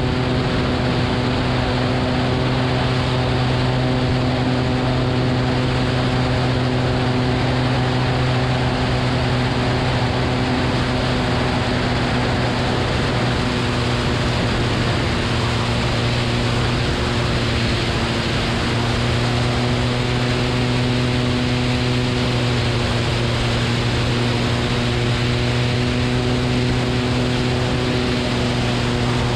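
Cessna 180's six-cylinder engine and propeller running at a steady, unchanging pitch in flight, heard through heavy wind rush on a microphone mounted outside under the wing.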